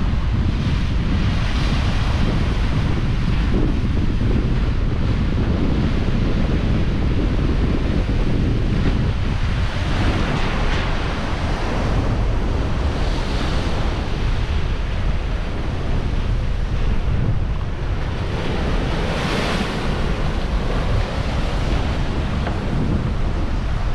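Sea surf breaking against a limestone cliff, its hiss swelling and falling back with each wave, several times over. Heavy wind rumble on the microphone lies underneath throughout.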